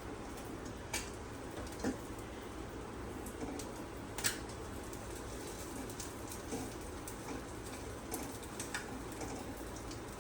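Paneer omelette sizzling softly in a pan, with a few sharp clicks of a spoon against the pan as it is worked under the omelette to flip it.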